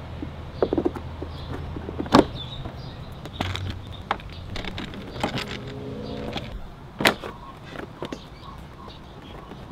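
Handling noises from refitting a Yamaha Vino 125's plastic battery cover and floorboard parts: a string of sharp plastic clicks and knocks over a low steady hum, the loudest about two seconds in and about seven seconds in.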